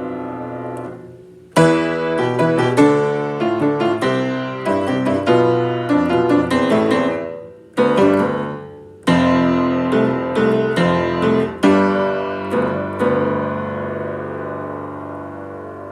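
Solo piano playing a piece in phrases of struck chords and notes, with a brief break about two-thirds of the way in and a last chord left ringing and fading over the final few seconds.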